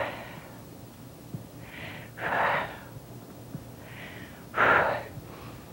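A woman breathing deeply and audibly into a clip-on microphone, winded after an aerobic workout: three long breaths, each a softer intake then a louder exhale, the last one the loudest.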